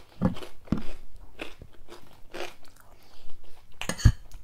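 A person chewing food close to the microphone, with irregular mouth noises. Near the end a fork knocks sharply against a plate.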